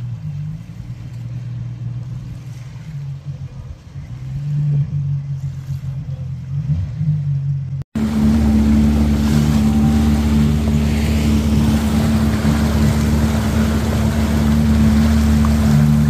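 Jet ski engine running steadily at speed. About eight seconds in the sound cuts out for an instant and returns louder: a steady, higher-pitched engine drone over a rushing noise.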